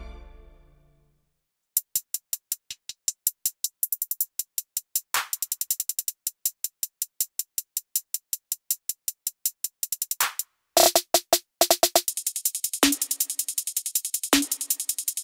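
Electronic backing music: an earlier piece fades out, then after a short gap a fast, even ticking beat starts about two seconds in, with synth notes joining past the middle.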